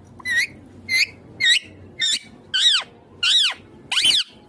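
Ringneck parrot giving a run of seven harsh, shrill calls about every half second, the later ones longer and falling in pitch at the end.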